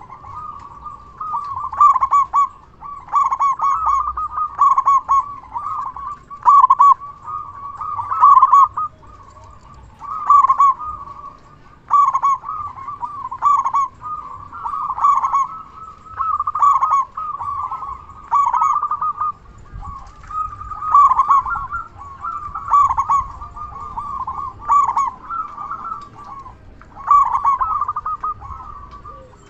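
Zebra dove (perkutut) cooing: loud, rolling, stuttering coos about a second long, repeated every second or two without a break.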